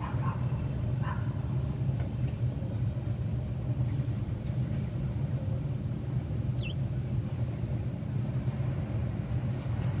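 Steady low rumble throughout, with a few faint budgerigar chirps in the first second and one brief high chirp about six and a half seconds in.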